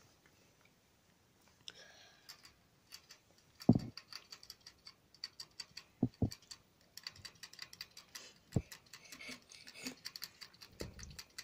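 Hamster working at the wire bars of its cage, its claws and teeth making quick, irregular clicks and ticks on the metal, with a few louder knocks against the cage.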